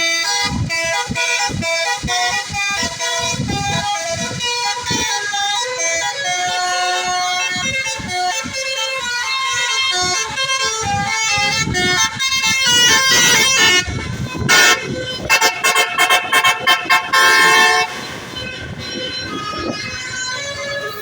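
Bus basuri (telolet) multi-tone musical horn playing a melody of stepping notes. About two-thirds through comes a loud run of quick on-off blasts, roughly three a second, and the horn is quieter after that.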